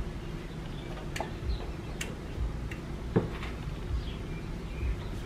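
Light, irregular plastic clicks and taps from hands handling the coolant reservoir's sensor wiring plug and the plastic tank. About five sharp ticks are spread across the few seconds, with a few soft low bumps between them.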